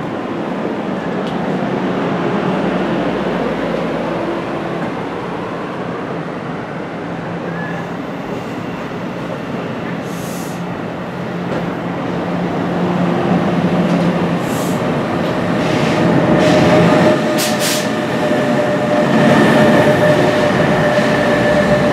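New Jersey Transit bilevel commuter train pulling out of the station, its cars rolling past with wheel and rail noise that grows louder as it gathers speed. Near the end the electric locomotive pushing at the rear passes with a steady whine over the rumble.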